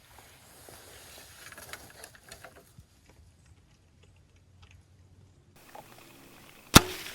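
Wild hogs rustling and crunching spilled corn, with scattered small clicks and patters. Near the end comes a single loud, sharp crack of a bow being shot.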